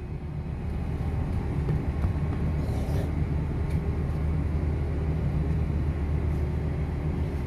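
Steady low rumble of a ship's machinery, holding an even pitch throughout.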